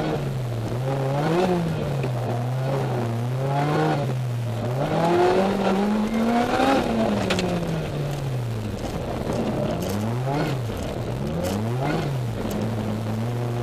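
Lotus Exige S engine heard from inside the cockpit, revving up and down again and again as it is driven hard. There is a longer climb in pitch about five seconds in, and quick rise-and-fall bursts near the end.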